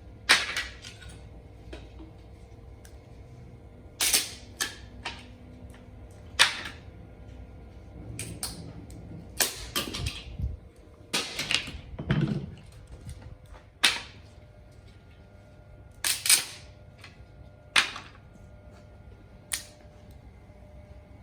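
A series of irregular sharp knocks and clacks, about a dozen, some with a short ring after them, over a faint steady hum.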